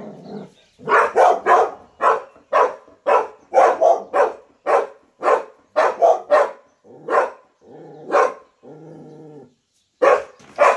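A dog barking rapidly over and over, about two barks a second, breaking into a longer level-pitched call before two final barks near the end: alert barking at something beyond the courtyard wall.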